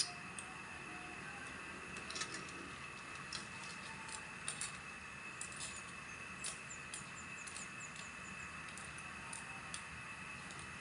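Pot of tulya clams cooking: a steady low hiss with scattered small clicks and pops as the cooking liquid bubbles around the opened shells.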